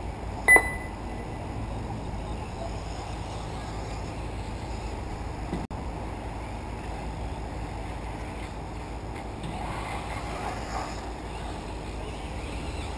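Radio-controlled off-road buggies running on a dirt track, heard as a steady blur of motor and tyre noise. A single short, high-pitched beep sounds about half a second in.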